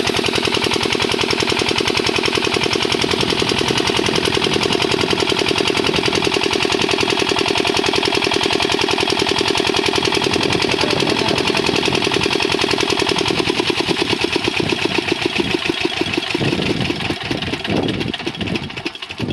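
Small single-cylinder diesel engine driving a water pump, running with a steady rapid chugging; over the last few seconds the beats slow and spread out as the engine is shut down, nearly stopping at the end.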